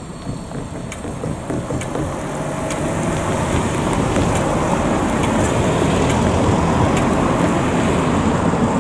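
Cars driving across a railway level crossing, their tyres and engines making a steady rushing noise that builds as a car passes close by, loudest in the last few seconds.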